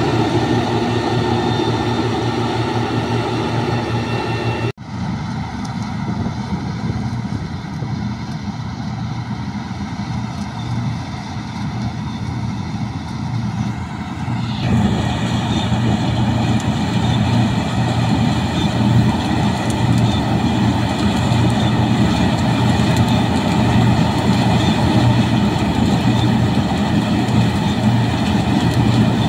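Combine harvesters running while cutting barley: a steady drone of the engine and threshing machinery. The sound changes abruptly twice, about five and fifteen seconds in, as a different machine takes over.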